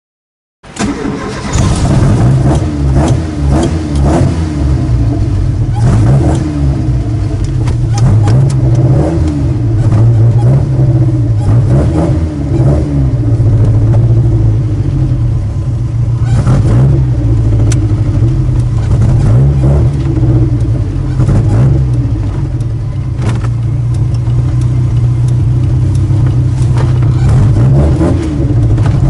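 Ginetta sports car's engine heard from inside the cabin, running loud and steady at idle and low road speed, with small rises and falls in revs.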